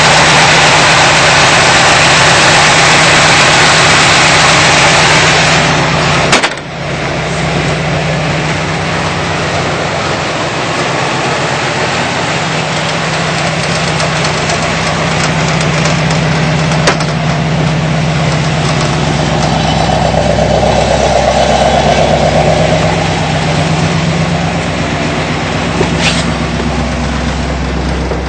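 Corvette C3's V8 engine idling, heard up close over the open engine bay with a loud rushing noise for about the first six seconds; after an abrupt cut it keeps idling steadily, a lower, even hum.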